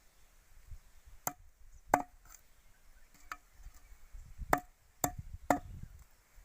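Small wooden sticks being struck: about seven sharp knocks at uneven intervals, with faint handling rumble between them.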